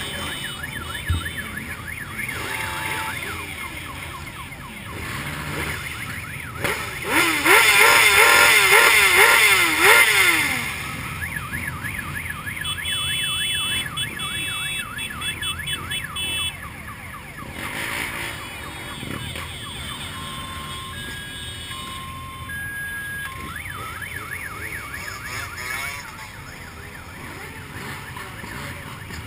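Motorcycles riding slowly in a parade, their engines running, with a fast warbling siren-like wail loudest about 7 to 10 seconds in. Repeated electronic alarm-like beeps and chirps sound later.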